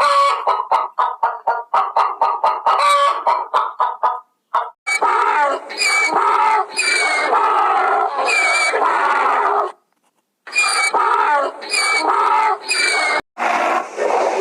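Chickens clucking: a quick run of short clucks, about five a second. About five seconds in it gives way to louder, longer squawking calls, with two abrupt cuts in the sound.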